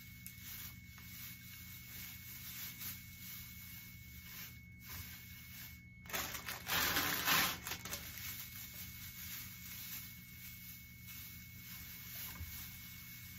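Shredded Easter grass rustling and crinkling as handfuls are pulled apart and stuffed into a plastic basket. A louder burst of crinkling comes about six seconds in and lasts a second or two.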